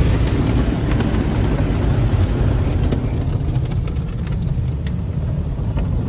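Automatic car wash running over the car during an exterior wash, heard from inside the cabin: water spray and wash machinery make a steady rushing noise with a deep rumble.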